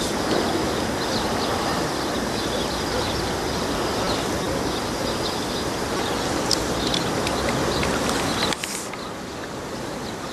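Steady wind noise buffeting the microphone beside the water, with faint bird chirps over it. The noise drops off suddenly about eight and a half seconds in.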